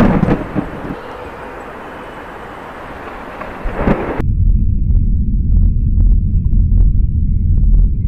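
Thunder sound effect: a sharp crack of thunder at the start and another just before halfway, then a loud, deep, steady rumble for the rest.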